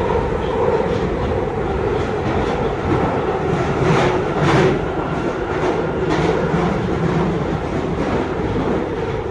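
London Underground Northern line 1995 Stock train running through a deep tube tunnel, heard from inside the carriage: a loud, steady rumble. Clusters of wheel clacks over the rails come about four seconds in and again around six seconds.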